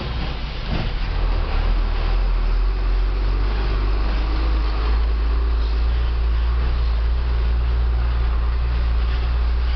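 Isuzu Giga tronton truck's diesel engine running under way, heard inside the cab as a steady low drone. About a second in, its note drops and grows louder, then holds steady.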